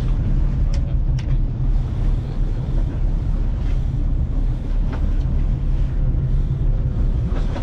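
Steady low rumble of a charter fishing boat's engines idling, with two short clicks about a second in.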